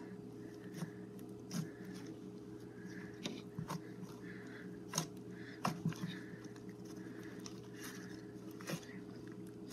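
Slime mixed with instant snow being kneaded and squeezed by hand, giving faint, scattered sticky clicks and crackles. A steady low hum runs underneath.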